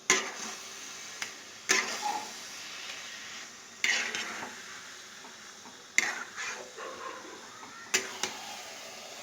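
A spatula stirring grated coconut in a pan: five knocks against the pan, about two seconds apart, each followed by a short scrape. The coconut is kept moving so that it does not stick to the bottom and burn.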